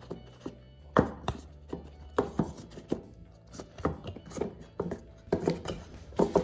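Hands handling a watch box and its packaging: a run of irregular light knocks, clicks and rustles.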